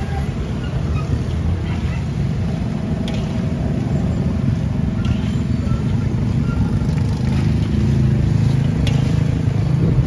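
A steady low rumble dominates, with a faint sizzle of fishballs deep-frying in oil in a steel wok and a few light clicks of the wire skimmer against the pan.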